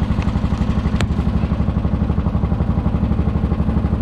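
A 12 hp Briggs & Stratton engine on a 1996 Murray garden tractor, running steadily with an even, rapid pulsing of about ten firing pulses a second. A single sharp click comes about a second in.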